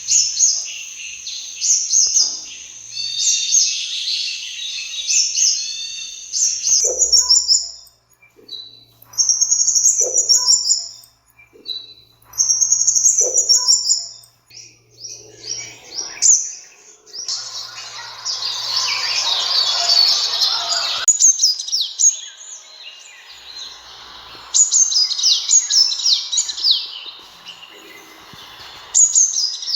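Sunbird calling: bursts of rapid, high-pitched chirps and trills with short pauses between phrases, some phrases repeated. A few seconds of hiss come in around the middle.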